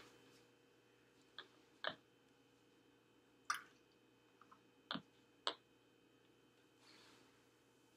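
Near silence, broken by five faint, short clicks and squishes as a yeast mixture is poured from a glass measuring cup into a plastic bottle of hydrogen peroxide and dish soap.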